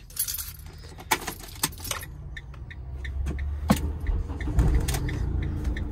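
Keys jangling and clicking at the ignition of a Fiat Ducato van, then the engine starting about halfway through and running with a low rumble.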